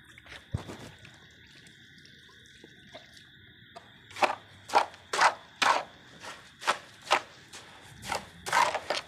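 Footsteps, about two a second, starting about four seconds in, each a short swishing scuff. A steady high-pitched buzz runs underneath.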